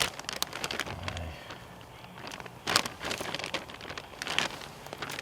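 Irregular crackling rustles and crunches of woodland leaf litter and twigs being handled and stepped on, with sharper snaps about three seconds in and again near the end.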